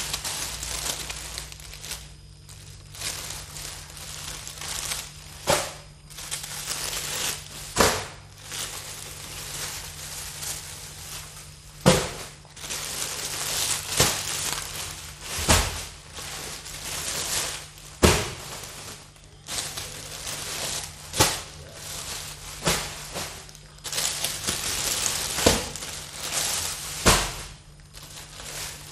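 Cellophane and plastic wrapping crinkling and rustling as packs of foil balloons are shuffled and handled, with sharp smacks every couple of seconds as packs are set down on a tile floor.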